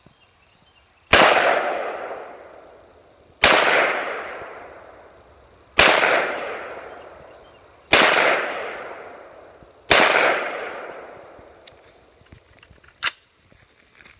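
AR-15 rifle in 5.56/.223 firing five single shots, spaced about two seconds apart, each echoing and dying away over about two seconds. A sharp click follows near the end.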